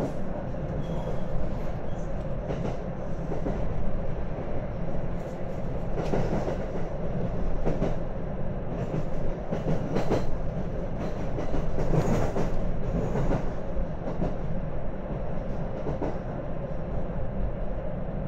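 Local train running along the line, heard from inside the carriage: a steady rumble of wheels and motors with wheels clacking over rail joints every second or two.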